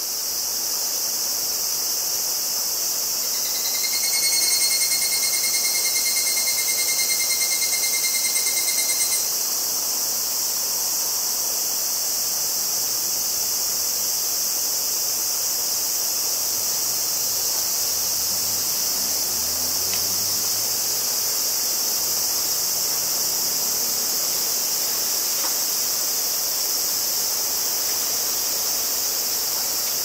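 Higurashi cicada (Tanna japonensis) calling: a ringing, pulsing call that starts a few seconds in and lasts about five seconds, over a steady high-pitched insect chorus.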